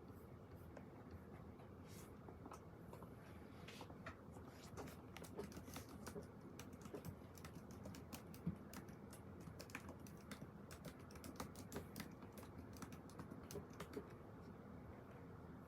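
Faint computer keyboard typing: irregular bursts of keystrokes that start about two seconds in and stop a little before the end, over a low steady room hum.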